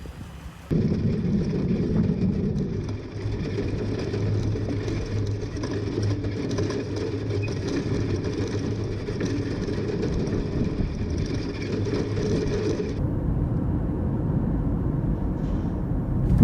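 A vehicle driving, its engine running steadily under road noise; the sound starts abruptly just after the beginning, and the upper hiss falls away about 13 seconds in while the low engine drone goes on.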